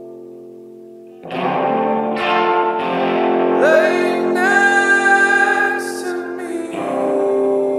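Background music: a song with a singing voice over guitar, the voice coming in about a second in over a fading chord.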